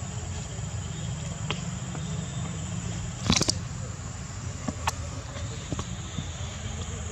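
Outdoor ambience: a steady low rumble under a thin, steady high-pitched drone, with a few faint clicks and one short louder scuff about three seconds in.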